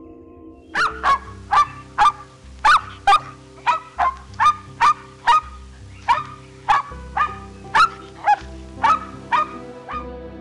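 A dog barking: about twenty short, sharp barks at roughly two a second, starting about a second in, over soft background music.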